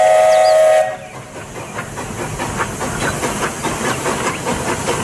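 Steam locomotive's chime whistle sounding a steady multi-note chord that stops about a second in, followed by the locomotive running past, chuffing and hissing steam.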